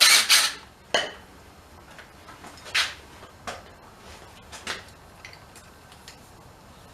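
A short scraping rustle, then a handful of scattered clicks and knocks as radiator parts and hand tools are handled and fitted on a dirt bike.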